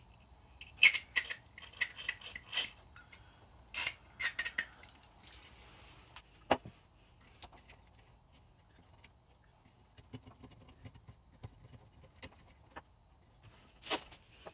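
Small clicks and clinks of a graphics card's fan and wiring being handled: a quick run of sharp ticks over the first few seconds, then a few sparse softer ticks and a single knock about six and a half seconds in.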